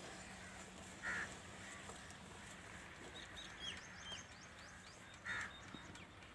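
Faint bird calls: a scatter of short, falling chirps around the middle, with two brief louder calls about a second in and near the end, over a quiet outdoor background.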